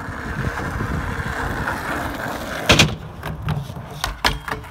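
Skateboard wheels rolling over rough asphalt with a steady rumble, then a loud sharp clack of the board a little under three seconds in, followed by a few lighter knocks.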